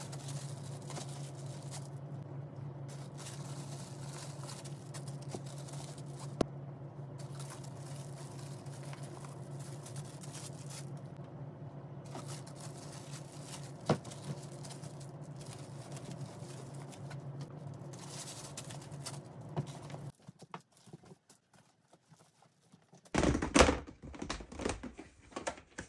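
Packing and handling noises: soft rustling and crinkling of plastic-wrapped items and fabric drawstring bags over a steady low hum, with a couple of sharp clicks. The hum cuts off about 20 seconds in, and near the end come louder knocks and scrapes of a plastic storage tub being handled.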